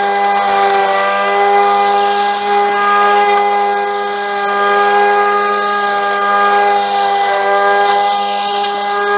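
Cordless trimmer's brushless electric motor and flat cutting blade running at speed through tall weeds: a steady high whine whose pitch sags slightly a few times, with a hiss above it.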